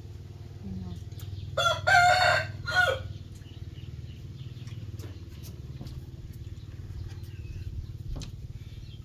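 A rooster crowing once, a cock-a-doodle-doo of a second and a half starting about one and a half seconds in, over a steady low hum.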